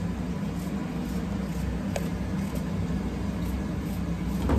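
Kitchen range hood (extractor fan) running with a steady low hum. A few faint clicks from a small knife slicing an onion held in the hand over a glass bowl.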